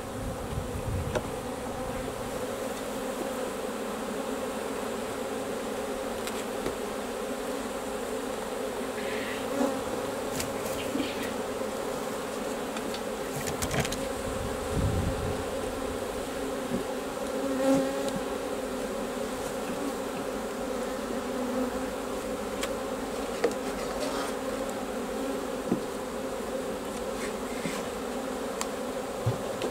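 Swarm of honey bees buzzing as a steady dense hum while the swarm is tipped from a swarm box into a hive, with a few light knocks from the handling.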